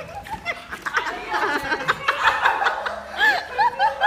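Several people laughing and chuckling, short overlapping laughs at different pitches.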